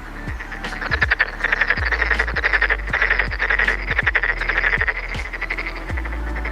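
A chorus of frogs calling, overlapping trains of rapid pulsed croaks repeating without a break.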